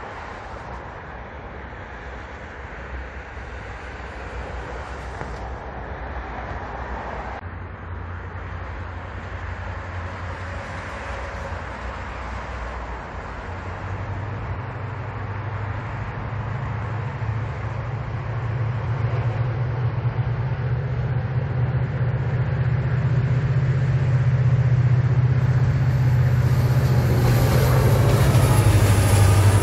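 Korail 7400-class diesel-electric locomotive approaching with a steady low engine drone that grows louder as it nears, hauling a train of subway cars. Near the end a thin high whine comes in, falling in pitch as the train draws level.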